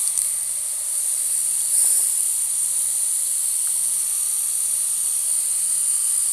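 Steady high-pitched hiss, with a faint low hum that comes and goes.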